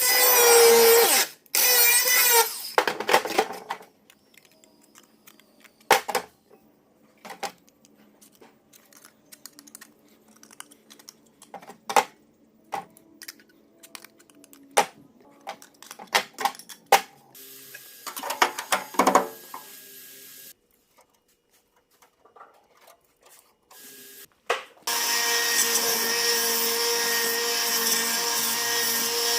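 A handheld electric power tool runs in two short bursts, then sharp knocks and taps of tools and metal being handled, with another brief burst partway through. Near the end the tool starts again and runs steadily.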